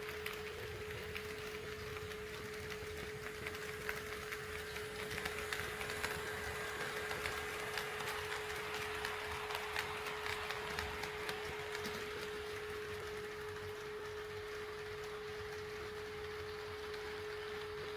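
HO scale model train running along the track, its wheels clicking over the rail joints. The clicking and running noise builds about four seconds in and fades after about eleven seconds, over a steady hum-like tone.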